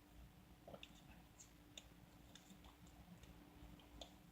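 Near silence: room tone with a faint steady hum and a few scattered, faint short clicks.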